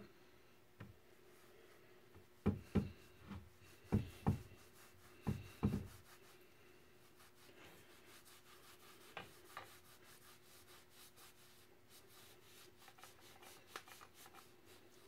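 Cloth rag rubbing along the metal pipe of a pipe clamp in fast, even strokes through the second half. Before that, a handful of sharp knocks in quick pairs as the clamp is handled, with a faint steady hum underneath.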